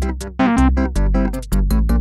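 Instrumental background music: keyboard chords over a steady bass beat, about two beats a second, with light high percussion ticks.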